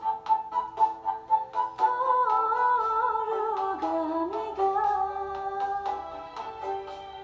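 Bhutanese song with a steady beat of about three strikes a second; from about two seconds in, a melody wavers and glides in pitch over it, with a woman's voice singing along.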